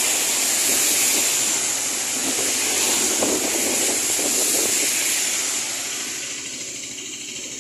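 A bus passing on a rain-soaked road: a steady hiss of tyres through the wet with the engine underneath, fading away over the last couple of seconds.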